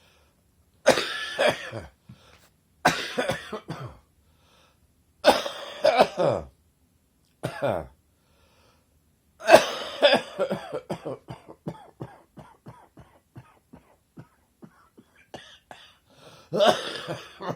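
Chesty morning cough: a person coughing in separate heavy bouts about every two seconds. A longer coughing fit a little past halfway trails off in a rapid run of short, weakening pulses, and one more bout comes near the end.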